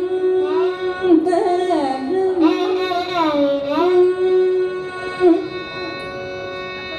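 Carnatic music in raga Hamsadhwani: a single melodic line, sung or played on violin, sliding and wavering between notes over a steady drone. The melody stops about five seconds in, leaving only the drone.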